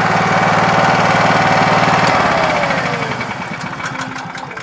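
Honda EM5000SX gasoline generator running steadily, then about two seconds in its engine note falls and fades as it winds down, as if shut off. A few sharp clicks come near the end.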